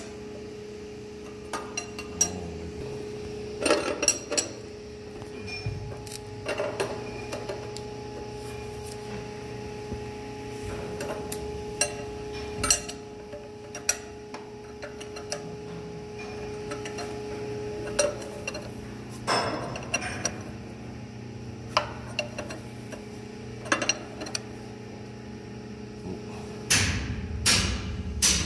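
Steel spanners clinking and knocking on the nut and threaded bolt of an engine's chain tightener as it is adjusted: scattered single clicks, then a quick run of knocks near the end. Under them a steady machinery hum, part of which drops away about two-thirds of the way through.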